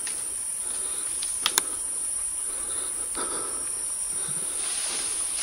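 A steady high-pitched drone from rainforest insects, with two sharp clicks close together about a second and a half in.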